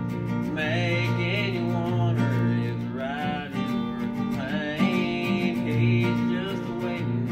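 Acoustic guitar strummed as accompaniment to a young man's voice singing a country song.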